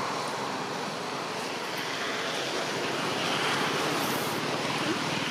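Steady outdoor background noise, an even hiss-like rush with no animal calls, and a brief faint high hiss about four seconds in.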